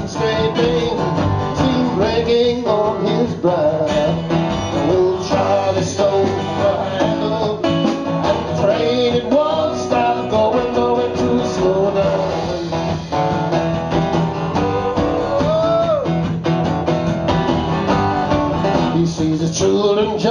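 A live acoustic rock band plays an instrumental passage: several acoustic guitars strummed over a drum kit, with a lead melody that bends in pitch over the top.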